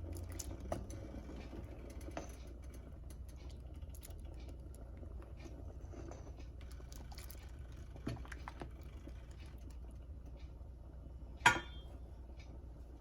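Faint sloshing of thick soup in a pot as a spoon moves through it, with light clinks of the utensil, one sharper clink near the end, over a low steady hum.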